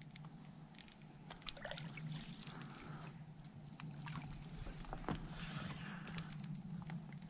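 Soft water splashing and sloshing at the boat's side as a hooked bass is played up to a landing net held in the water, with scattered small clicks and knocks, one sharper click about five seconds in. A steady low hum runs underneath.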